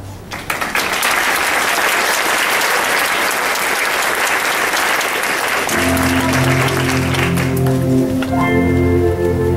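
Audience applauding loudly as a song ends. About six seconds in, instrumental music with sustained low notes starts underneath, and the applause dies away a second or so later.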